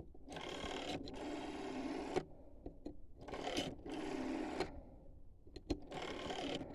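Rotary telephone dial whirring as it spins back after each pull, a buzzing run about a second long, heard four times with short pauses between.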